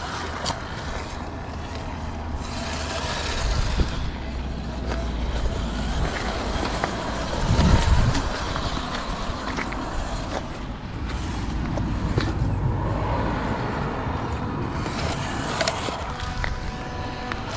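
Small RC crawler truck with a 370 electric motor and reduction gearbox whirring as it crawls over dirt, mud and gravel, its tyres crunching and scraping on the ground. The sound is loudest as the truck passes close about eight seconds in.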